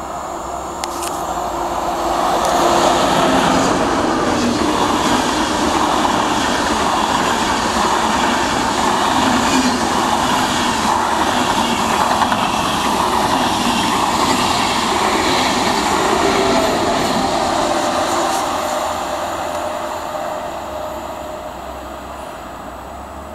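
ICE high-speed train passing close by. The running noise of wheels on rail builds over the first couple of seconds, holds steady for about fifteen seconds as the long rake of coaches goes by, then fades as the train draws away.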